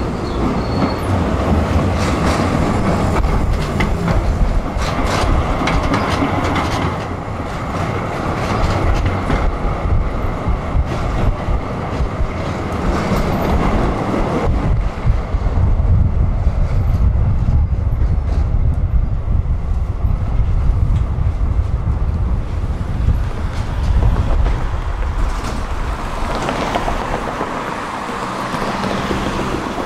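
A tram running on its rails, heard from aboard: a steady rumble of wheels and running gear with scattered clicks and clacks over the track. The noise eases off near the end.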